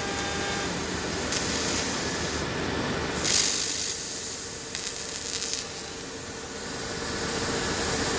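12 kW CNC laser cutting thick 35 mm steel plate: a steady noisy hiss with a constant hum, swelling into a loud high-pitched hiss for about a second and a half a third of the way in.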